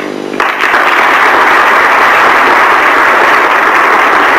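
A large crowd applauding. The applause breaks out suddenly about half a second in and holds steady and loud.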